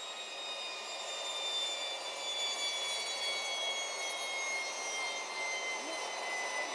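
Gas turbine jet engine on a lawn tractor running with a steady rush and a high turbine whine made of several tones that slowly fall in pitch.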